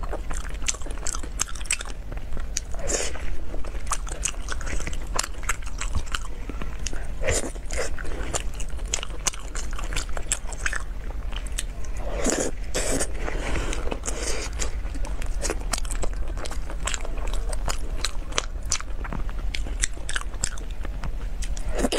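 Close-miked chewing and biting of braised pork in sauce: a steady run of wet mouth clicks and chews, a little louder about three seconds in, after seven seconds and around twelve seconds. A low steady hum sits underneath.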